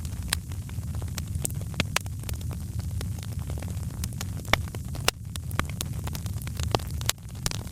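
Fire crackling: irregular sharp pops and snaps over a steady low rumble of the flames, with a few louder pops around the middle.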